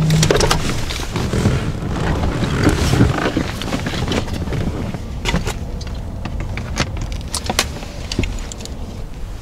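People climbing out of a truck with rifles and gear: scattered clicks, knocks and clothing rustle from doors and equipment, over a continuous low rumble.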